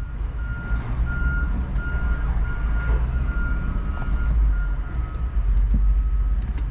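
A reversing alarm on heavy construction equipment beeps steadily at about two to three beeps a second, fading after about four and a half seconds. Under it runs a steady low engine rumble.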